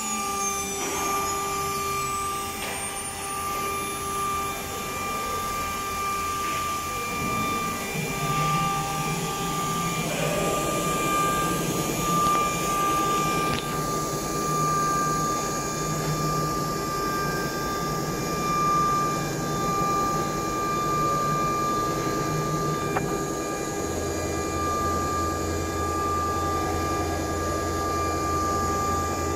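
Automatic-tool-change CNC router running under test: a steady high spindle whine over the hum of its motors, with a tone sliding down and then back up near the start. A low hum grows louder near the end.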